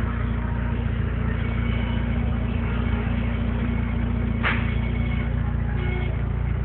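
Car audio system's subwoofers pumping deep, steady bass at high volume, the music's upper parts buried in a dense haze, with one sharp click about four and a half seconds in.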